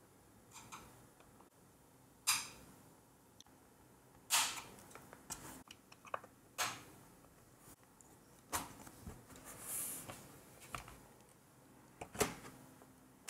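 Plastic snap-in clips of a Lenovo ThinkPad A485's bottom cover clicking free as the cover is pried off, about half a dozen sharp clicks a second or two apart, with some handling rustle.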